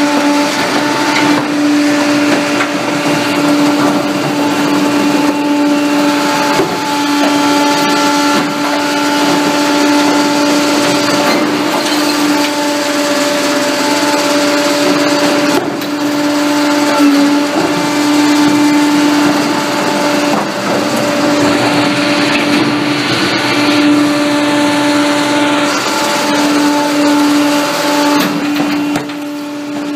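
Pak-Mor rear-loading recycling truck with its hydraulics running, a steady hum over a continuous clatter. The cart tippers dump recycling carts into the hopper and the packer crushes the load.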